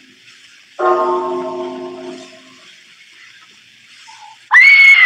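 A clock bell striking the hour, a radio-drama sound effect: one deep chime about a second in that rings and dies away. Near the end a sudden, loud, high cry cuts in: a woman screaming.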